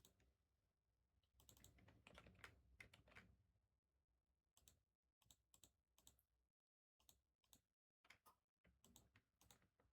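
Very faint typing on a computer keyboard: irregular clusters of key clicks, busiest in the first few seconds.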